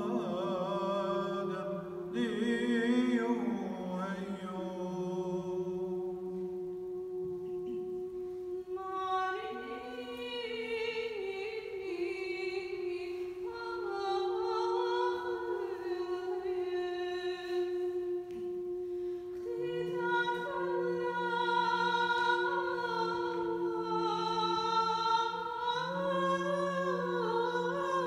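Aramaic liturgical hymn (madrasha) chanted by a man, the melody moving slowly over a steady held drone note.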